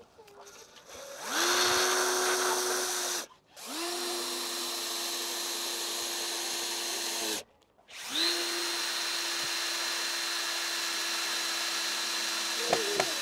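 Cordless drill running into the timber frame in three long runs, each spinning up with a quick rising whine; the first run is the loudest.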